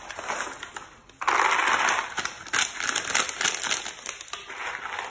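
Crinkling and rustling of thin white packing wrap as it is handled and crumpled, growing louder about a second in.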